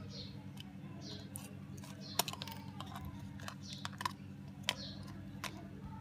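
Sharp plastic clicks and taps as a keypad phone's housing, keypad board and screen are pressed back together by hand, the loudest about two seconds in. Faint high chirps recur throughout over a steady low hum.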